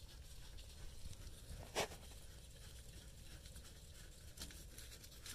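Quiet hand work on a brake caliper: a loosened caliper bolt being turned out by hand, with faint handling noise and one sharp metal click about two seconds in.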